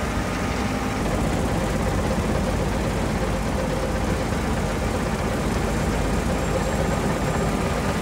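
John Deere S785i combine harvester running steadily while cutting wheat: a constant engine and machinery drone with faint steady tones over it.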